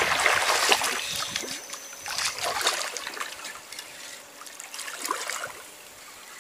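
A hooked fish splashing at the river's surface as it is reeled in to the boat. The splashing is loudest in the first second, comes again in bursts around two to three seconds and five seconds in, then dies down.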